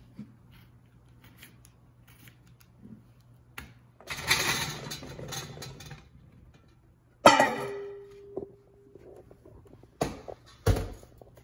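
Red radishes tumbling out of a mixing bowl into a stainless-steel colander with a rattling clatter. About three seconds later comes one sharp metal clank that rings and fades, the loudest sound here, then a few knocks near the end.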